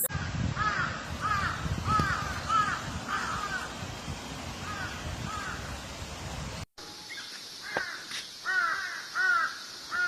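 Crows cawing: a steady run of short, arched caws, then after a brief break near the middle a second recording of crows calling in spaced caws.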